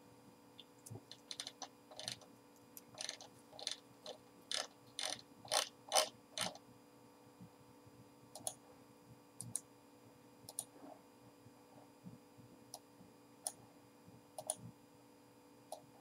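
Computer mouse clicking: a quick run of scroll-wheel ticks for the first six seconds or so, loudest near the end of the run, then a handful of single, spaced-out button clicks over a faint steady hum.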